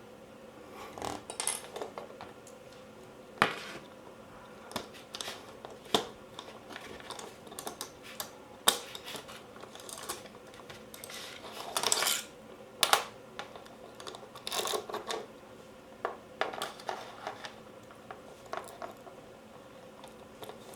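Metal and plastic parts of a CYMA 040 airsoft AK being handled during disassembly: irregular clicks and clinks as pieces and tools are picked up and set down, a few sharp knocks, and short bouts of scraping about twelve and fifteen seconds in.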